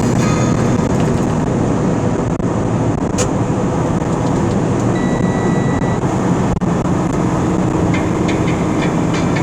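Steady in-cab engine and road rumble of a vehicle driving at highway speed. About five seconds in, a thin high tone sounds for about a second.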